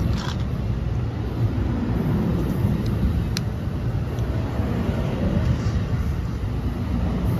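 NJ Transit Multilevel coaches rolling past as the train pulls out, a steady low rumble of wheels on the rails, with a single sharp click about three seconds in.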